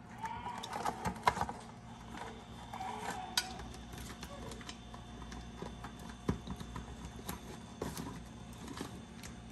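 Hard lobster shells clicking and knocking against one another and the glass baking dish as halved lobsters and claws are moved and arranged by hand, in scattered light taps over a faint steady hum.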